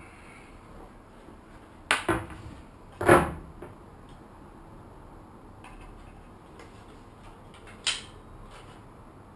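A few sharp wooden knocks and clatters as a board and a cordless circular saw are handled and set down: a double knock about two seconds in, the loudest a second later, and one more near the end. The saw is not running.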